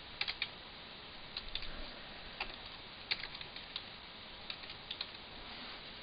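Faint keystrokes on a computer keyboard as a word is typed, with scattered taps coming singly and in small quick clusters.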